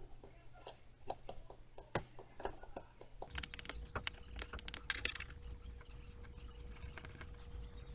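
Irregular small metallic clicks and taps of a metal pick working on the gear and frame of an open Marryat MR7A fly reel during reassembly. A faint steady hum comes in about three seconds in.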